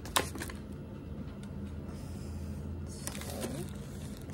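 Small handling noises: a sharp click just after the start, then scattered light clicks and rustles, over a steady low hum.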